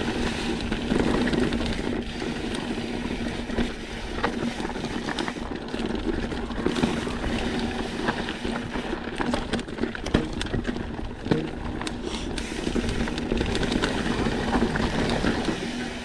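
Wind rushing over the microphone and a mountain bike rattling as it rolls along a rough trail, under a steady low hum, with a few sharp knocks about ten and eleven seconds in.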